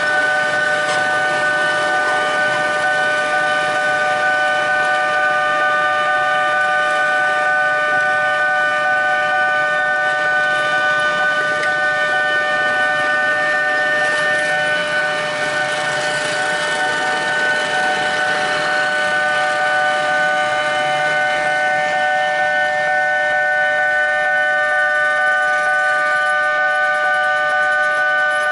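Railway level-crossing warning alarm sounding continuously as a steady electronic tone, several pitches held together without a break.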